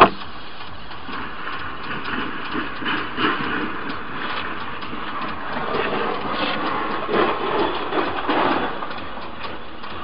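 A runaway horse-drawn cart clattering and rattling as it runs past, with irregular knocks that grow louder in the second half, over a steady hiss heard inside the car.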